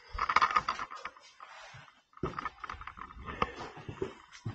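Scuffing, scraping and a few sharp knocks of someone clambering over rock, with rustling close to the microphone. It comes in irregular bursts, with a short pause about halfway through.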